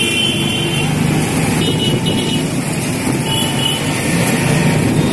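Busy city traffic heard from a moving auto rickshaw: a steady engine rumble and road noise, with brief high tones now and then.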